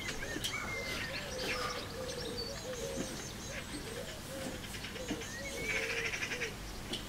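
Eurasian magpie giving a brief harsh rattling chatter about six seconds in, over birdsong: low cooing notes repeating steadily and higher chirps.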